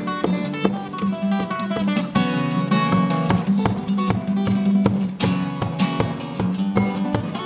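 Solo acoustic guitar fingerpicked with no amplification: quick plucked melody notes over steadily picked bass notes.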